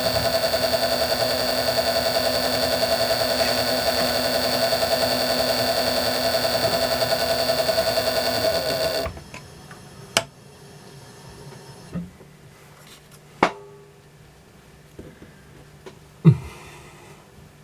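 Small metal lathe running at low speed with a steady motor hum and whine while a dog point is turned on a small steel grub screw. It is switched off about nine seconds in, and the hum stops abruptly. A few light metallic clicks and knocks follow.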